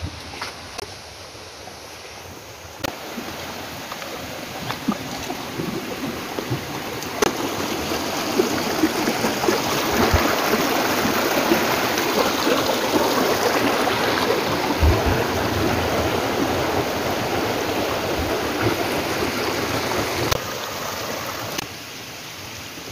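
Shallow rocky stream running and gurgling between boulders, growing louder over the first several seconds and dropping off shortly before the end.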